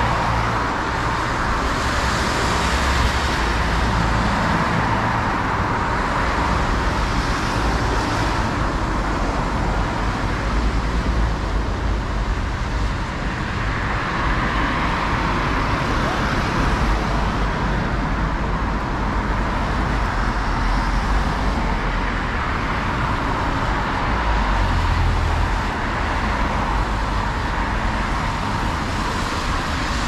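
Steady city road traffic: cars, vans and trucks driving past on a wet, slushy road, with tyre hiss and engine noise that swell gently every few seconds as vehicles go by.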